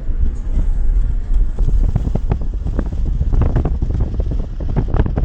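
Strong wind buffeting the microphone: a loud low rumble with irregular gusts.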